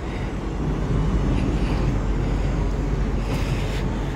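Steady low rumble of outdoor street noise, with a few faint knocks about a second in and again near the end.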